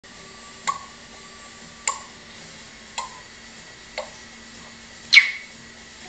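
African grey parrot making four sharp clicks with its tongue or beak, about a second apart, then a short, louder falling whistle about five seconds in.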